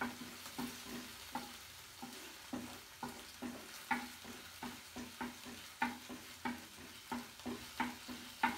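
A spatula stirring and knocking in a frying pan, irregular at about one to two strikes a second with a short metallic ring, over a faint sizzle of ginger-garlic paste heating in coconut oil.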